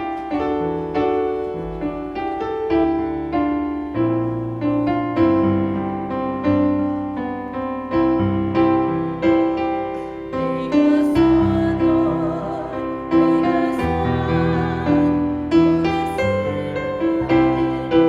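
Instrumental piano music: chords and melody notes struck at a steady, even pulse, with a wavering held tone joining the piano about eleven seconds in.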